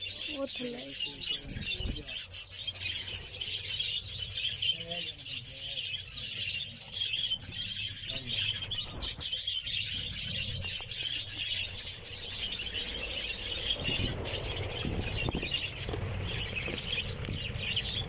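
A colony of budgerigars chattering and chirping continuously, many birds at once.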